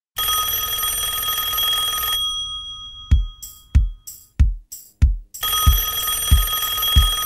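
A telephone rings twice. Each ring is a steady, bell-like tone lasting about two seconds, with a pause of about three seconds between them. In the pause a drumbeat of deep thumps begins, about one and a half a second, and carries on under the second ring.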